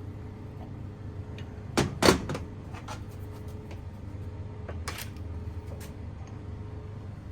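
Sharp knocks and clicks of tools and parts being handled during AC compressor clutch work, the two loudest close together about two seconds in and a few lighter ones later, over a steady low hum.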